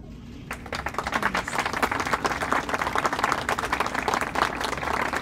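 Shopping cart pushed across a hard, glossy store floor: a dense, rapid rattling clatter of its wheels and basket, starting about half a second in.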